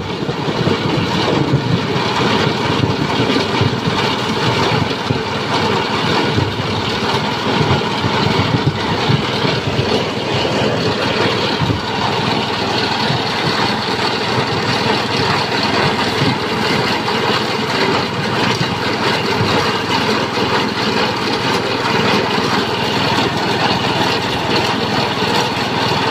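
Small petrol engine driving a multi-purpose grass chopper, running steadily at working speed while material is fed by hand into its hopper. There are irregular rattles and crunches from the cutter, busiest in the first half.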